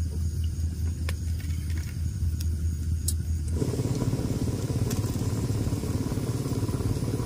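A low, steady engine hum. About three and a half seconds in it becomes a louder, rougher rumble, with a few faint clicks over it.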